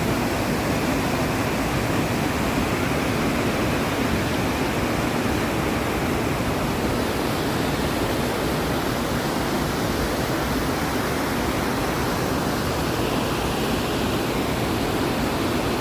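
Steady rush of fast-flowing mountain water, an even noise that holds unchanged throughout.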